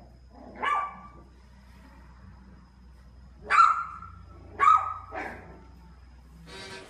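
Small black puppy yapping: four short, high-pitched barks, one about half a second in and three in quick succession a few seconds later.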